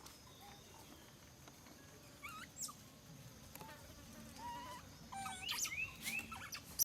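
Faint high animal chirps and squeaks: short rising and arching calls, a few at first and a busy cluster from about five seconds in, with a sharp tap at the very end.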